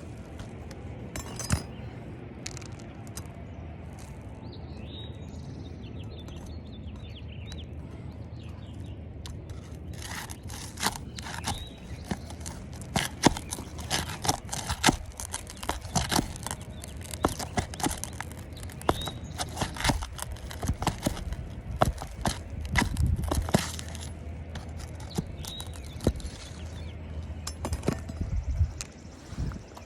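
Flat scraper blade working under asphalt shingles to pry them up and loosen the roofing nails: scattered scrapes, clicks and taps, sparse at first and coming thick and irregular through the middle and latter part.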